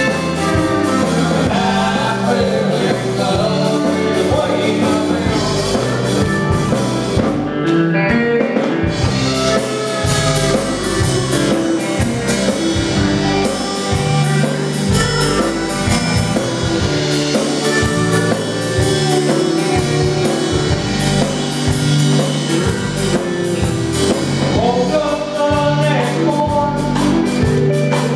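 Live country band playing a song: singing over guitars and a drum kit with a steady beat.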